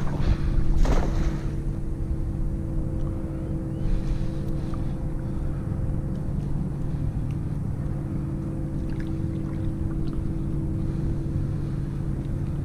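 A motor running steadily with an even hum, over low wind noise on the microphone. There are a couple of short swishes about a second in.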